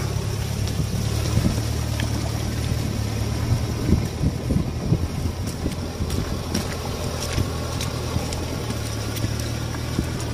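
Nissan Terrano SUV's engine running steadily under load as it crawls through deep, water-filled mud ruts on big mud tyres, with irregular splashing and churning of mud and water, heaviest a few seconds in.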